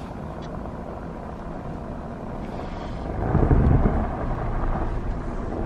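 Wind buffeting the microphone, a steady rush that swells into a stronger gust a little past halfway.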